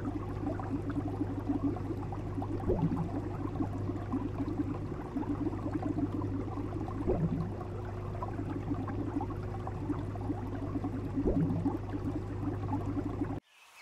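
Aquarium water bubbling and gurgling over a steady low hum from the tank's pump, with a louder rising gurgle about every four seconds. It cuts off abruptly near the end.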